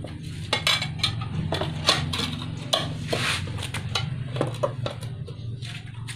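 Steel tire iron clinking and scraping against a spoked motorcycle wheel rim as the tyre bead is levered over it: a string of sharp metallic clicks and knocks.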